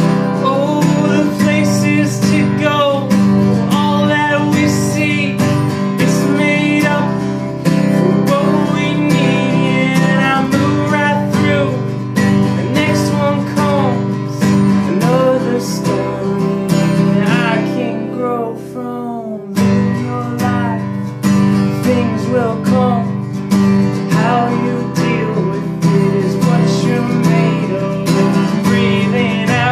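Steel-string acoustic guitar strummed steadily in a relaxed rhythm, with a man's wordless singing over it. The strumming briefly thins about two-thirds of the way through.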